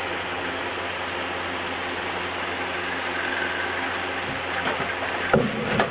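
Steady hum and whir of an electric oscillating fan's motor, heard close through the camcorder mounted on the fan, broken by a couple of short sounds near the end.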